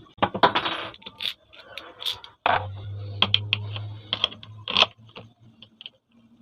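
Small metallic clicks and scrapes from hand tools working a ball bearing off a ceiling fan's shaft, with a low steady hum for a couple of seconds midway.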